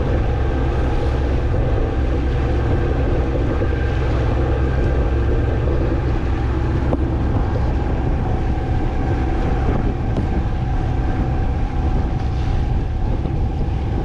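Boat engine running steadily under way, a constant low rumble with wind on the microphone.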